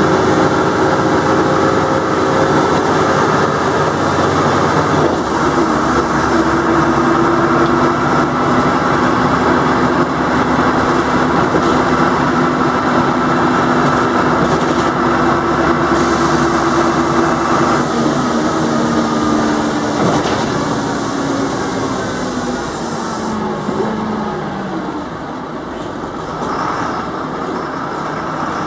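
Jelcz 120MM/2 city bus heard from inside the passenger cabin: its diesel engine and ZF automatic gearbox run with a steady whine of several tones, which shifts about five seconds in. From about twenty seconds the whine falls in pitch and the sound grows quieter as the bus slows.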